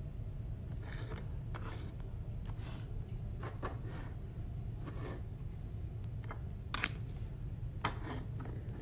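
Hard plastic card cases being moved and set into clear plastic display stands: scattered light scrapes and clicks, with two sharper clicks near the end, over a steady low hum.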